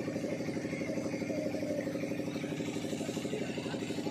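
Motorboat engine running steadily with an even, fast pulse.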